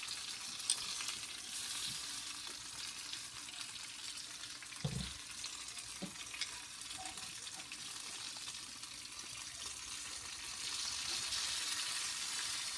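Food frying in a pan, a steady crackling sizzle that grows a little louder near the end, with a single soft knock about five seconds in.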